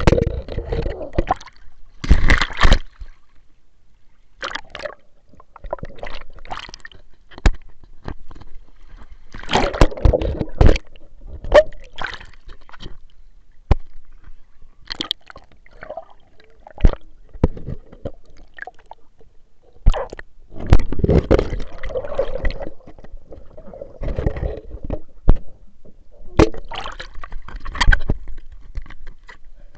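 Pool water sloshing, gurgling and splashing around a camera moved through it, in irregular surges broken by sharp knocks and bumps on the camera.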